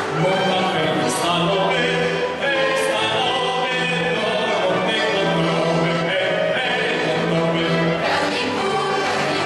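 A folk group in regional costume singing a Silesian folk song in chorus, with long held notes.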